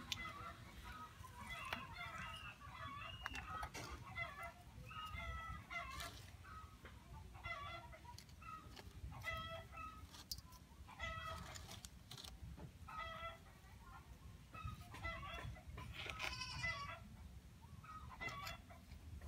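Fowl clucking in short, repeated calls, roughly one every second, over a low steady rumble.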